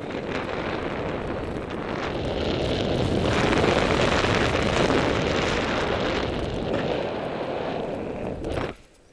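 Airflow buffeting a paraglider pilot's camera microphone in flight: loud, steady wind noise that drops away suddenly near the end.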